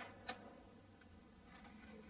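Near silence: room tone, with one short faint click about a third of a second in.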